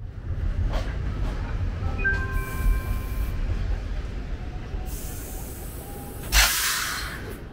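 Subway train running with a heavy low rumble, brief high squeals from the wheels or brakes about two to three seconds in, and a sharp burst of hiss near the end.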